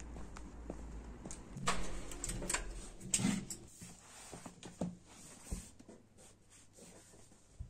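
Sheets of a printed paper booklet rustling as they are handled, loudest between about one and a half and three and a half seconds in, followed by softer scratches of a pen writing on paper.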